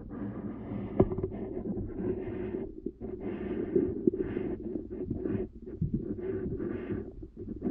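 Underwater sound picked up through a GoPro's waterproof housing: a muffled, steady low rumble with irregular crackling bursts and a sharp click about a second in. The uploader takes these underwater noises for suckers making sounds.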